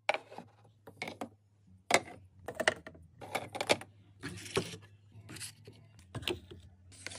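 Hands setting a plastic storage basket, light bulbs and packaged items down on a shelf: a quick series of short clacks, taps and rustles, about one or two a second.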